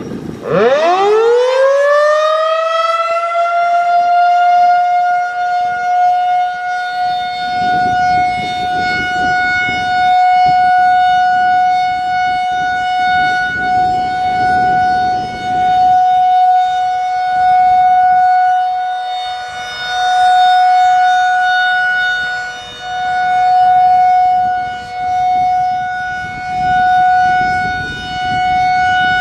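Federal Signal 2001-DC "Roundback" electromechanical warning siren winding up from a low pitch to a steady high tone within a few seconds, then holding that one steady tone for a scheduled siren test. Its loudness rises and falls every few seconds as the rotating siren head sweeps past.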